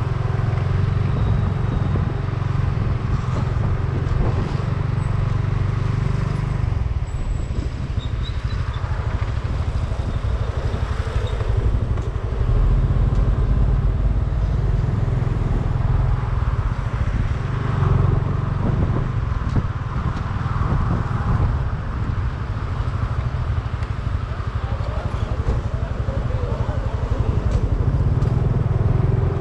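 Steady low rumble of road vehicle noise.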